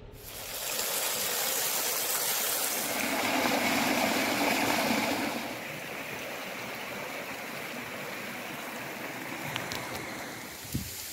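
Rushing water of a rocky mountain stream, a steady hiss of flowing water. It is louder for the first five seconds or so, then steadier and a little quieter.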